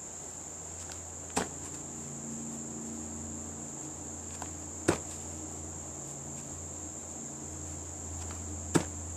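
Three sharp thuds about three and a half seconds apart: feet landing on grass after backflips. Under them runs a steady high trill of insects such as crickets.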